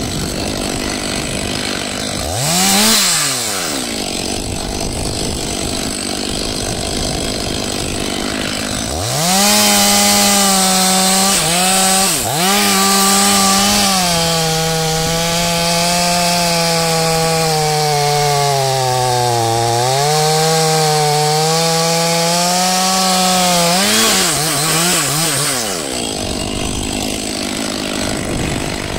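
Two-stroke chainsaw idling, revved once briefly about three seconds in, then held at full throttle from about nine seconds in for some fifteen seconds while it cuts wood, the engine note sagging and recovering under load, before dropping back to idle.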